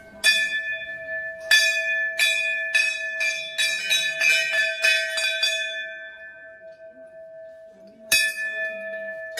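Hindu temple bell being struck repeatedly, about a dozen strokes coming faster and faster, then left to ring out and fade. One more stroke comes about eight seconds in.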